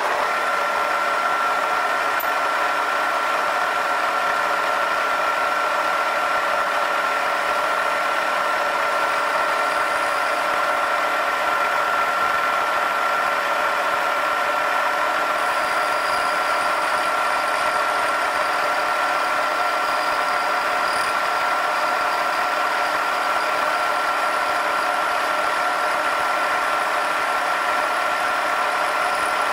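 Vertical milling machine running at a steady speed, a constant high whine over an even hiss, as an end mill freehand cleans up the top of a brass workpiece.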